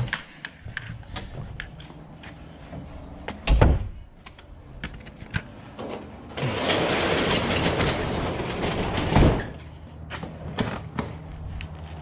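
A door thumping shut about three and a half seconds in, among scattered knocks and handling clicks, then about three seconds of loud rushing noise that cuts off with a knock.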